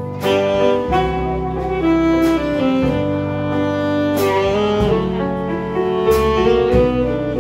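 Saxophone playing a slow, sustained jazz melody over an electric bass guitar line, with a few light percussive hits spaced a second or two apart.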